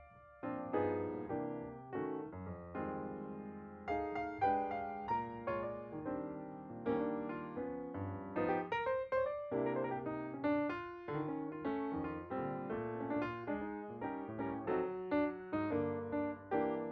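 Background music played on piano: a gentle run of notes in quick succession, each one ringing and fading.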